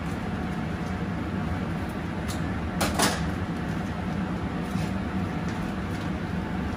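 A plastic cooking bag being handled and pulled open by hand, with a short sharp crackle about three seconds in, over the steady low hum of a kitchen extraction fan.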